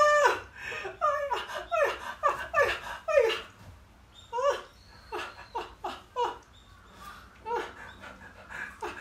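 A person laughing loudly in a quick run of short bursts, each dropping in pitch, that thins out into scattered laughs after about three seconds.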